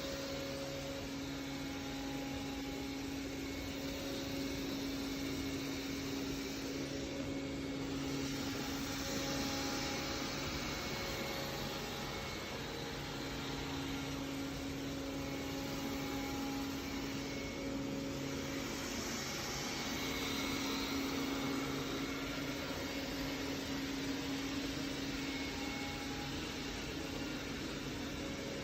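Roborock S6 MaxV robot vacuum running steadily, a constant motor hum with an airy suction hiss that swells briefly now and then as it moves about.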